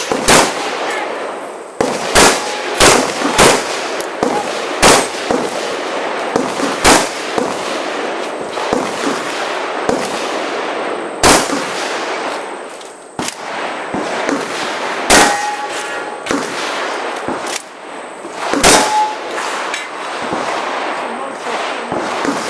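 12-gauge shotgun firing a string of about a dozen shots, spaced unevenly from half a second to a few seconds apart, at steel targets; after a couple of shots a steel plate rings briefly with a clang. The shooting stops a few seconds before the end.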